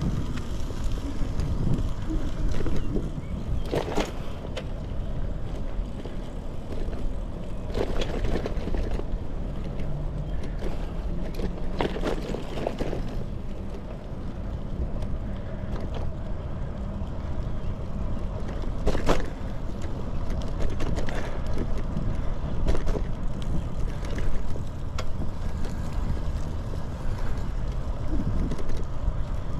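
Bicycle being ridden on pavement: a steady rumble of tyres and wind noise on the microphone, with a few sharp clicks or rattles along the way.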